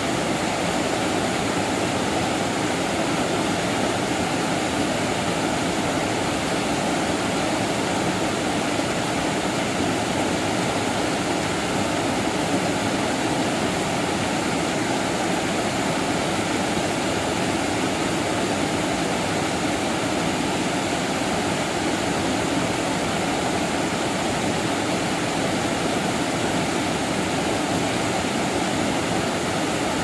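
Steady rush of a low waterfall pouring into its plunge pool.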